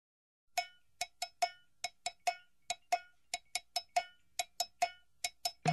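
Music intro: a single pitched percussion instrument struck in a quick syncopated pattern, about twenty short strikes with silence between them. The full band with drums comes in at the very end.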